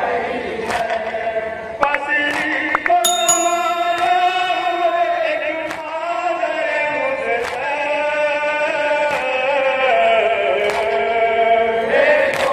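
Men chanting a nauha, an unaccompanied Urdu lament, led by a voice on a microphone with long held notes. Sharp chest-beating (matam) strikes fall about once a second.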